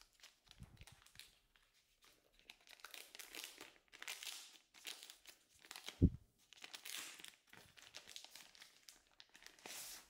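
Frosted plastic bag crinkling in bursts as its adhesive flap is peeled open and it is pulled off a handheld remote controller. One dull thump about six seconds in.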